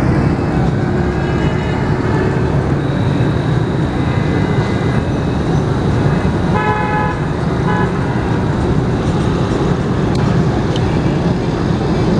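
Steady low rumble of outdoor traffic noise, with two short horn toots a little past halfway through.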